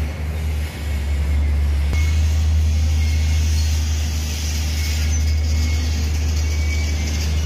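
Steady low engine rumble from heavy machinery and vehicles at an earthworks site, with a hiss that grows louder about two seconds in.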